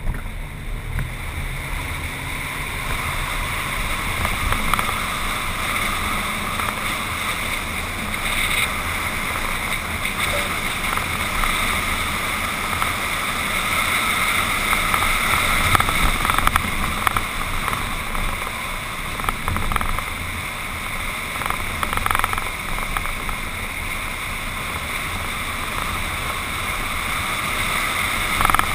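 Ford F-150 pickup driving along a sandy dirt trail: a steady rush of wind and tyre noise, picked up by a camera on the hood. A few short knocks come from the rough track.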